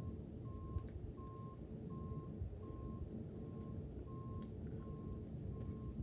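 A vehicle's electronic warning beeper sounding one steady tone over and over, about three beeps every two seconds, over a low rumble.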